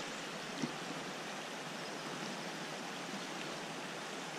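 Steady rushing of a swollen river's current, with one short sharp click about half a second in.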